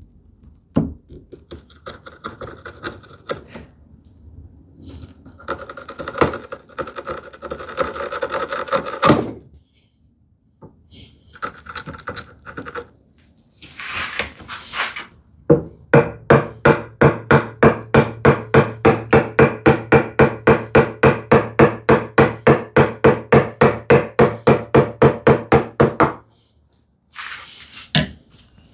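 Hand tool working the wood of a tenon's haunch to thin it: irregular strokes for the first nine seconds or so, then after a pause a steady run of about four strokes a second for ten seconds that stops suddenly.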